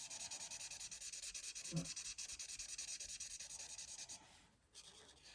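Skin-tone marker rubbing on paper in quick, even back-and-forth colouring strokes, a faint scratchy sound that stops about four seconds in. The marker is felt to be drying up.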